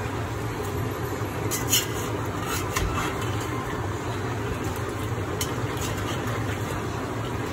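Meat frying in a cast-iron kazan with a steady sizzle, cooking off its liquid, while a metal spoon stirs it with a few light clinks against the pot.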